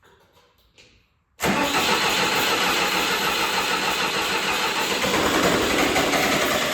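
Starter cranking the John Deere 450C bulldozer's diesel engine, cutting in suddenly about a second and a half in and running steadily. The cranking is to bleed air out of the fuel system through cracked injector lines.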